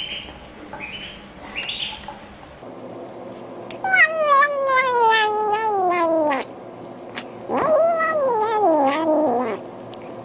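Kitten eating from a dish and giving two long, wavering mewing calls, the first sliding down in pitch, the second rising then falling. Before them, short repeated peeps from a duckling.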